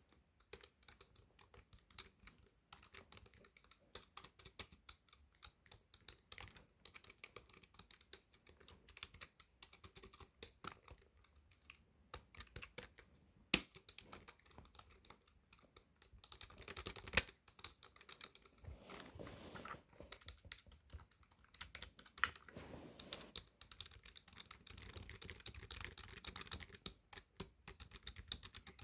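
Computer keyboard being typed on: a fast, irregular run of key clicks, with a few louder single keystrokes about halfway through.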